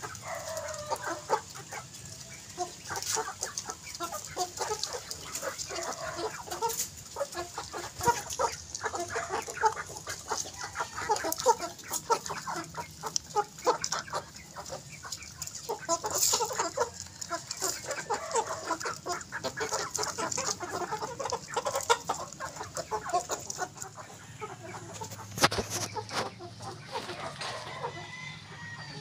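Rhode Island White × Rhode Island Red cross hens clucking continuously as they feed, with many sharp ticks of beaks pecking grain off gravel.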